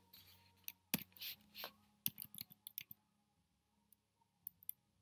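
Computer keyboard keys being pressed: scattered soft clicks, a quick run of them about two to three seconds in, then a few single taps near the end.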